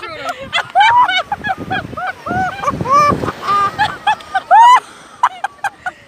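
A man's voice making a quick string of loud, high-pitched honking cries, each one rising and falling in pitch, several a second.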